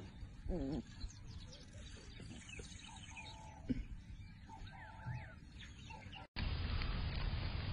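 Birds chirping in the background, with a brief low wavering call about half a second in and a single click a little past the middle. Near the end the sound cuts suddenly to a louder steady rushing noise.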